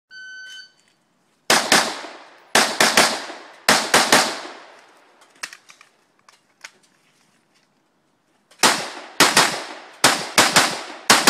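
Electronic shot-timer start beep, then AR-15 rifle fire in quick pairs and triplets, each shot ringing out after it. Three quick strings of shots come in the first few seconds, then a pause with a few small clicks, then a rapid run of paired shots near the end.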